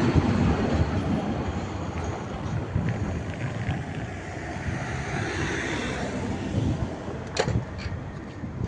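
Street traffic noise: a passing vehicle's rumble, loudest at the start and then fading, with a sharp click near the end.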